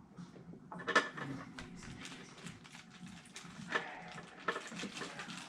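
Small hard items clinking and knocking as they are handled, with a sharp click about a second in and another near four seconds.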